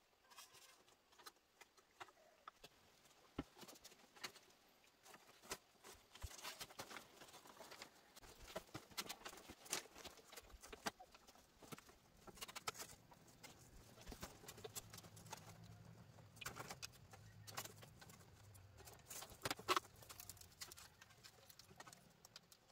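Faint, scattered knocks and rattles of bamboo poles and a split-bamboo panel being handled and fitted into a frame, with uneven taps coming irregularly throughout.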